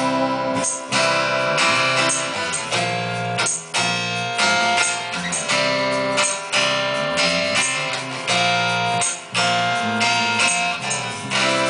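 Steel-string acoustic guitar strummed in a steady rhythm with an electric bass guitar playing along underneath: the instrumental close of a live acoustic song, the last chord left ringing near the end.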